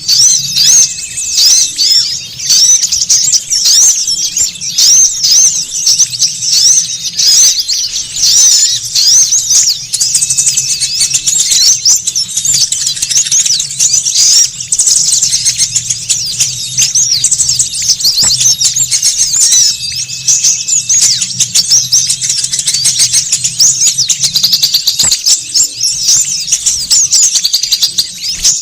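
Dense, unbroken chattering of many small songbirds, rapid high chirps and twitters overlapping with no pause: a bird-lure recording of noisy small birds. A faint steady low hum lies beneath.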